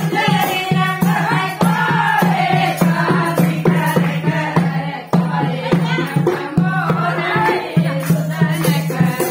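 Indian folk dance song: singing voices over a steady drum beat with jingling, rattle-like percussion.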